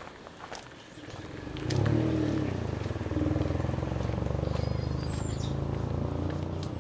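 A motor vehicle's engine approaching and passing close by: it builds up about a second in and stays loud for several seconds. A few short high bird chirps come near the end.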